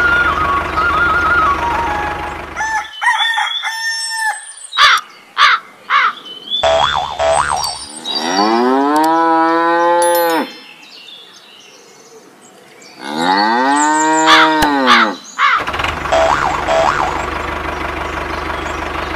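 Cow mooing dubbed in as a sound effect: two long moos a few seconds apart, each rising and falling in pitch. Before them the music stops about three seconds in and a few short cartoon boing effects follow. Near the end, a steady engine running sound starts.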